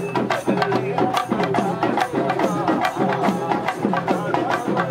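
Festival procession music: drums beaten in a fast, even rhythm, about five strokes a second, under a wavering melody.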